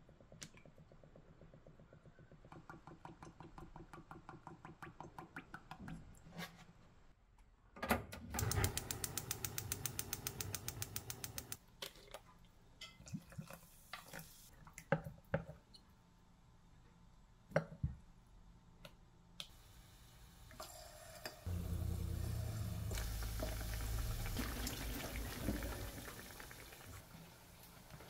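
Cooking oil glugging out of a plastic bottle into a pot in a run of pulses that grow louder, then frying batter whisked briskly with wooden chopsticks against a glass bowl. After that come scattered clinks, and then a steady rushing noise for several seconds near the end.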